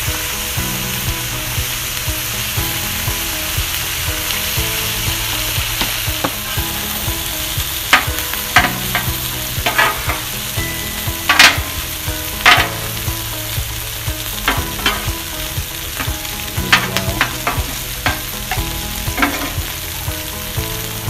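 Steady sizzle of short ribs and buttered rice frying on a flat-top griddle. From about eight seconds in, a metal spatula scrapes and clacks on the steel plate in a run of sharp clicks as the rice is pushed and turned.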